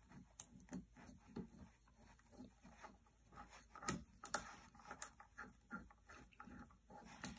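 Faint, irregular taps and scrapes of hands handling a fabric-covered bed panel, with a couple of slightly louder knocks near the middle.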